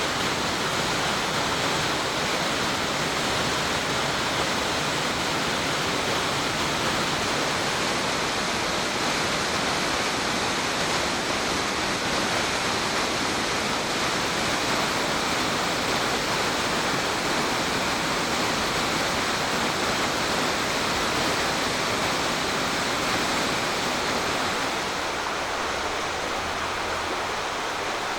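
Choshi Otaki, a waterfall on the main course of the Oirase Stream, sending a steady, unbroken rush of falling water. About 24 seconds in the sound drops a little and changes to the rushing of water at another spot along the stream.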